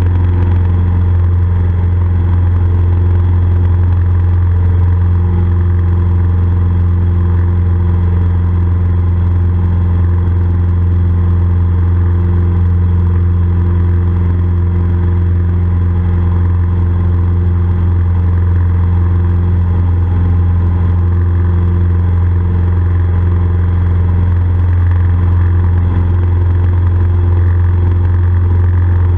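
Cessna F150L's four-cylinder Continental O-200 engine and propeller running steadily in flight, a constant low drone with no change in power.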